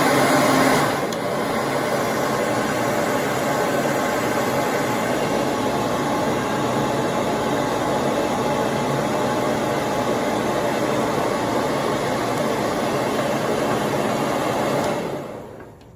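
Handheld hair dryer blowing steadily, a little louder in the first second, then winding down and switching off near the end.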